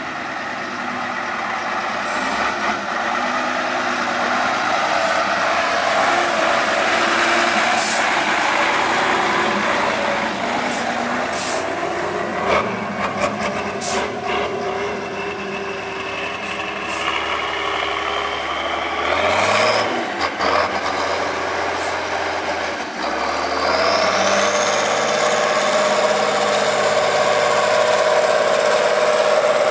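Big diesel engine of a 6x6 trial truck working off-road, its revs shifting and then climbing twice in the second half to a steady higher pitch. Several sharp knocks sound in the first half.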